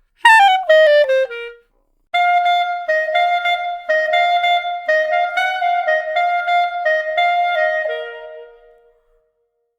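Solo clarinet playing a quick descending run. After a short pause it plays a longer phrase that moves back and forth between two neighbouring notes, then drops to a lower held note that fades away.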